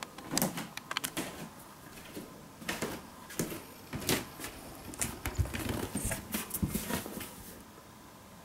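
Irregular clicks, knocks and rustles from someone walking on a wooden floor and handling the recording device, with a few dull low thumps about four to five seconds in; it stops shortly before the end.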